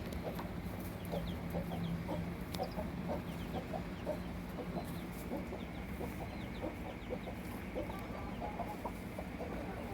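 Broody Standard Cochin hens clucking in a steady run of short, low clucks, the soft call a mother hen uses with her chicks, with a few high chick peeps in the first half.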